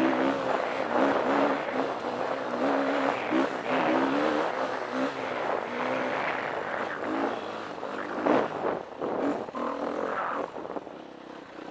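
Single-cylinder four-stroke engine of a 2013 KTM 350 EXC dirt bike running under load on a trail, its pitch rising and falling as the throttle is worked. In the second half the engine tone becomes rougher and less even, with a sharp knock about eight seconds in.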